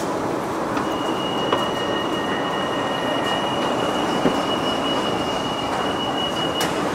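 Escalator running with a steady mechanical rumble. A high, steady whine sets in about a second in and cuts off shortly before the end.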